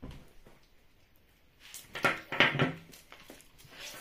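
Electronic speed controllers and their heavy wires being handled and set down on a table: a knock at the start, then a cluster of knocks and rustles about two seconds in.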